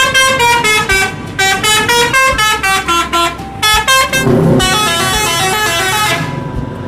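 Multi-tone musical 'telolet' horn of an Indonesian tour bus playing quick runs of short notes that step up and down in pitch. From about four seconds in, the bus's engine and road noise swell as it passes close, with the horn still sounding over it.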